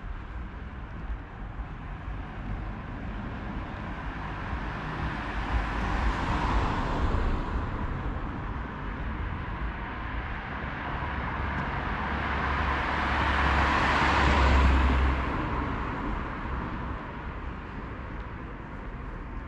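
Two cars passing along the street, the first swelling and fading about six seconds in, the second louder, with a low engine rumble, peaking around fourteen seconds.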